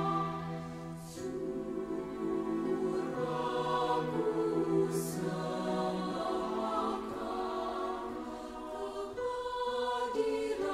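Slow background music of held chords that change every second or two.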